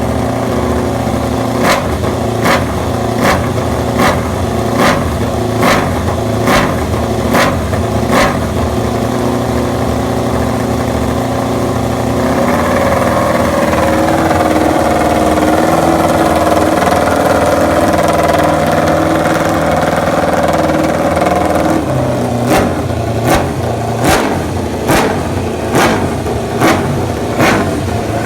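MotoGP racing motorcycle engine running at a steady speed, its pitch shifting a couple of times. Sharp clicks sound evenly, about every 0.8 seconds, through the first third and again near the end.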